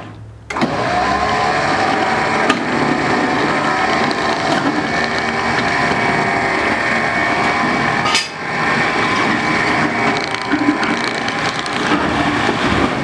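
Electric winch motor running steadily as it pulls a car shell onto a trailer. It stops for a moment right at the start and falters briefly about eight seconds in.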